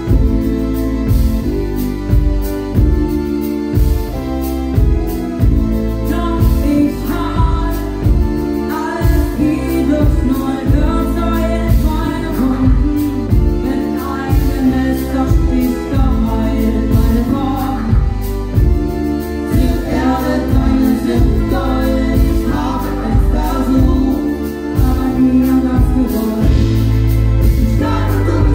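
Live pop band playing a song: drums and bass keeping a steady beat under keyboard and electric guitar, with singing over the top.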